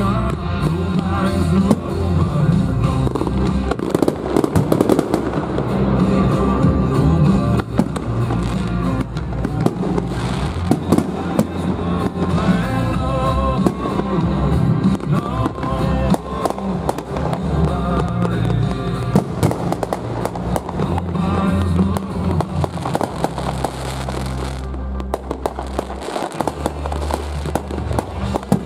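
Fireworks display: repeated bangs and crackling from aerial shells bursting, heaviest about a third of the way in and again near the end, over music with a steady bass line.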